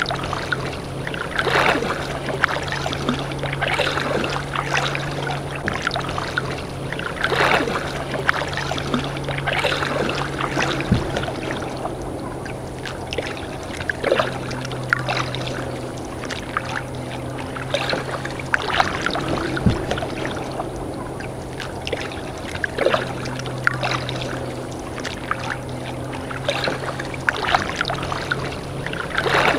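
Kayak paddle dipping and splashing every second or two, with water sloshing against the hull. A steady low hum runs underneath.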